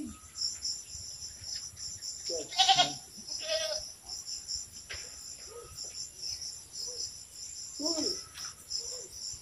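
Steady high chirring of an insect chorus, with a few short, wavering animal calls over it, the loudest about two and a half seconds in.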